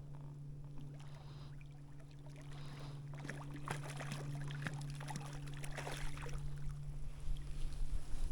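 Trout splashing and thrashing at the water's surface as it is played in to hand, with short wet splashes that grow louder from about three seconds in. A steady low hum runs underneath.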